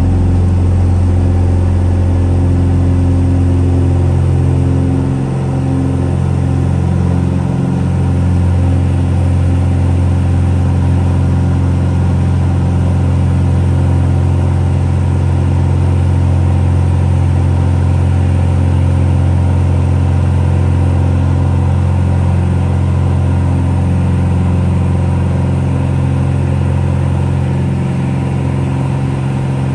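Van's RV-10 single piston engine and propeller under takeoff and climb power, a loud, steady drone heard from inside the cockpit.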